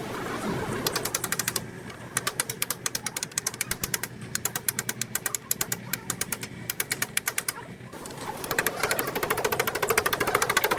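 A wrench working on wheel-hub fasteners, clicking rapidly and evenly in several runs. The runs break off briefly about a second and a half in and again around eight seconds in.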